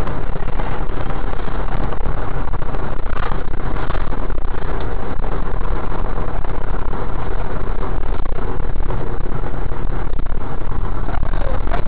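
Steady engine and road noise inside the passenger cabin of a moving coach bus.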